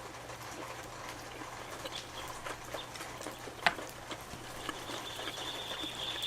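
Close-up chewing with soft, wet clicks and one sharp snap a little past halfway. From about three-quarters of the way in, birds chitter steadily and high-pitched.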